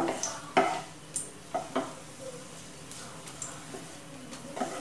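Spatula stirring whole spices, black cardamom pods and cloves, in hot oil in a nonstick frying pan: a handful of short, irregular scrapes against the pan over a faint sizzle.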